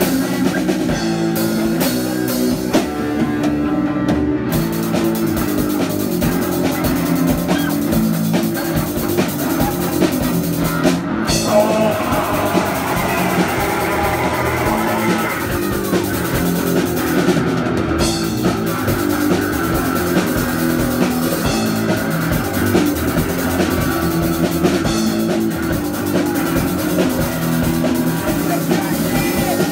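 Punk rock band playing live: electric guitar, bass guitar and drum kit pounding out a loud, steady rock song.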